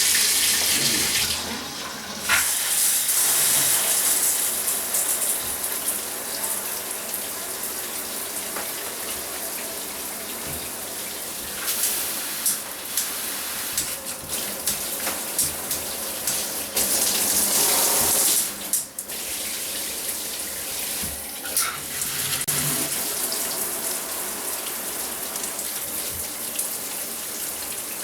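Water spraying from a newly installed dual showerhead, turned on to check the fittings for leaks. The hiss of the spray shifts in loudness a few times, with brief drops about two seconds in and about two-thirds of the way through.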